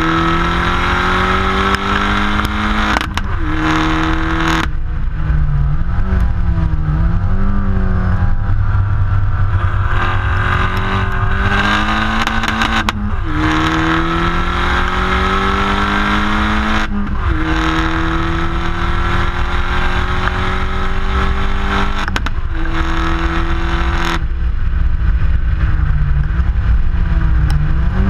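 Opel Corsa OPC's 1.6-litre turbocharged four-cylinder exhaust, fitted with the Nürburgring exhaust, heard right at the tailpipe under hard acceleration on track. The note climbs steadily in pitch through each gear and drops sharply at each upshift, several times over.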